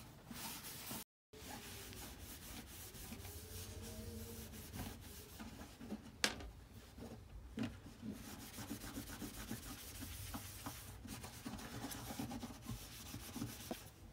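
Repeated rubbing and scrubbing against a surface, with a sharp click about six seconds in.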